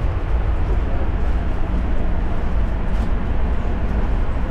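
Rubber-tyred Paris Métro MP14 train running through a tunnel, heard from inside the front of the carriage: a loud, steady low rumble with a hiss of running noise over it.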